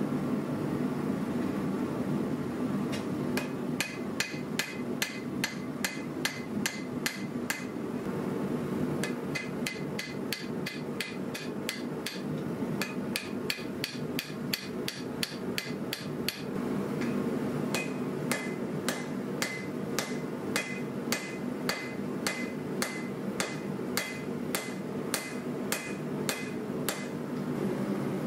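Hammer blows on a hot steel-and-copper billet over a steel anvil, about two to three ringing strikes a second, in runs with short breaks. They are drawing out the cu mai blade. Under them is the steady roar of the propane forge burner.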